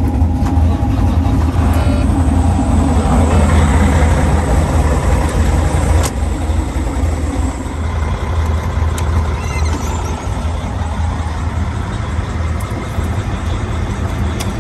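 Semi-truck diesel engine idling steadily, a little louder in the first several seconds, with a single sharp knock about six seconds in.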